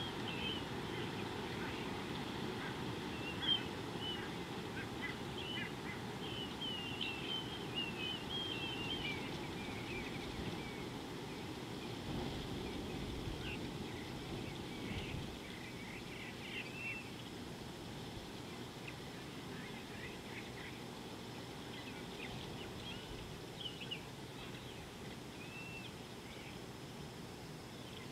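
Outdoor bush ambience: small birds chirping in scattered short phrases over a steady low rumble. One sharp click sounds about three and a half seconds in.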